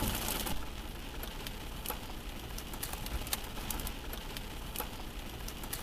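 Rain and small hail hitting a car's windshield and roof, heard from inside the car: a steady hiss dotted with sharp ticks of single hits.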